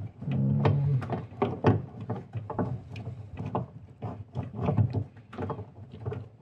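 Irregular hard plastic clicks, taps and rattles as an LED headlight bulb and its wiring are twisted and pushed against the headlight housing's socket, trying to line the bulb up so it locks in.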